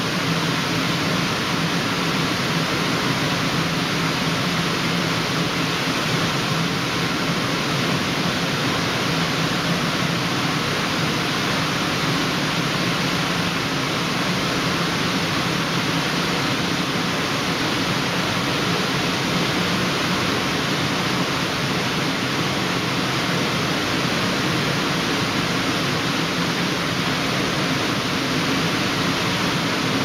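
Automatic tunnel car wash running: water spraying and brushes turning make a steady rushing noise over a low motor hum.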